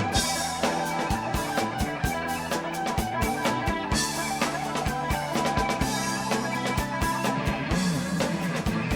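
Live rock band playing an instrumental passage: drum kit keeping a steady beat with bass drum and rimshots under electric guitar and bass.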